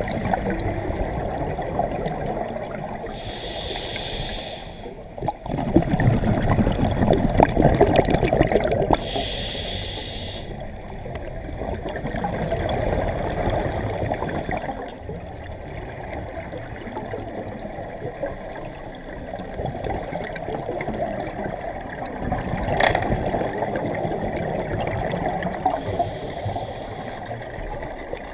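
Scuba diver breathing through a regulator underwater. There are hissing inhales at about three, nine and twenty-six seconds in. Each is followed by the gurgling rush of exhaled bubbles, loudest after the first.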